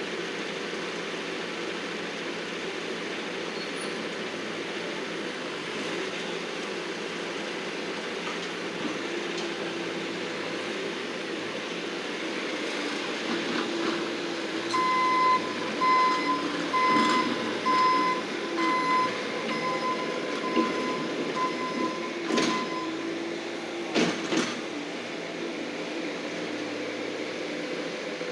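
Bobcat skid-steer loader's engine running steadily, its reverse alarm beeping about once a second for some eight seconds past the middle as it backs up. Two sharp knocks follow near the end.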